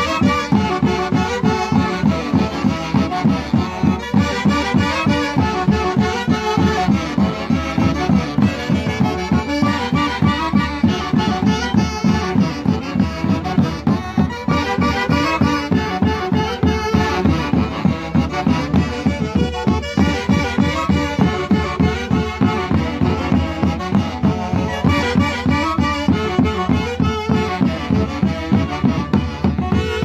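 Andean folk band of saxophones with a Peruvian harp and bass drums playing a traditional tune over a steady, even drum beat.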